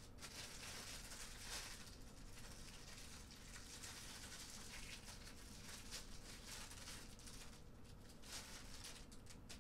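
Clear plastic packaging sleeve crinkling faintly and irregularly as it is handled and opened.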